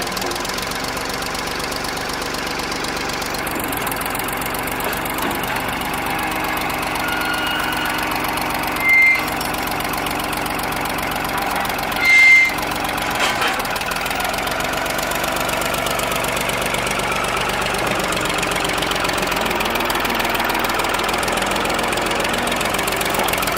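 Ford 550 backhoe's engine running steadily at idle. Two short, high-pitched squeals sound about nine and twelve seconds in.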